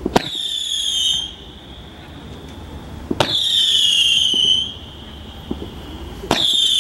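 1.5-inch whistle fireworks firing shot by shot: three launches about three seconds apart, the last near the end, each a sharp pop followed by a loud high whistle that falls slightly in pitch over about a second.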